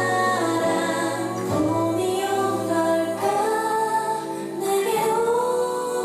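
A K-pop girl-group song performed on stage, with female voices singing melodic, held phrases over a full pop backing track.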